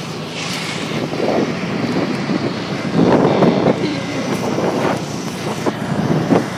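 Wind rushing over a phone microphone on a moving John Deere Gator utility vehicle, with the vehicle's running noise underneath. Several louder rough gusts come and go, the biggest about three seconds in.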